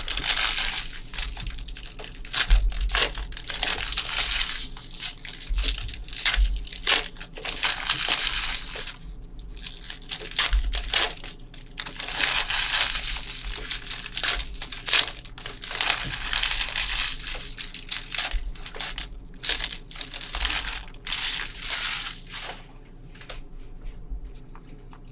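Trading-card pack wrappers and plastic packaging being torn open and crumpled by hand: on-and-off crinkling and crackling with short tearing sounds and brief pauses.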